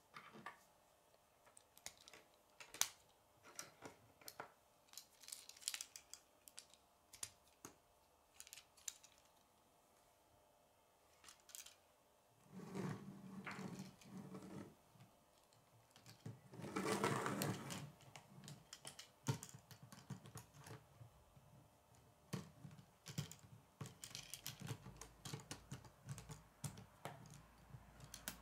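Plastic K'nex rods and connectors clicking and snapping together under the fingers as a model is built, in many short sharp clicks. Around the middle come two longer stretches of rustling, handling noise.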